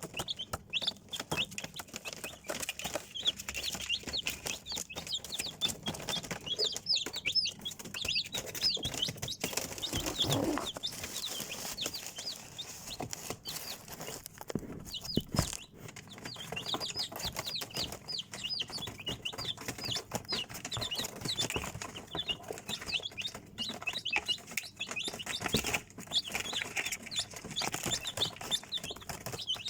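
A group of chicks peeping continuously: a dense stream of short, high cheeps. Scattered light clicks and scratches run through it, with a couple of lower thumps about ten and fifteen seconds in.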